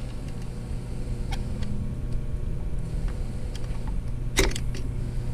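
Screwdriver tightening the set screws of the rotary hook on a Consew 226 industrial sewing machine: a few faint metal clicks and one sharper click near the end, over a steady low hum.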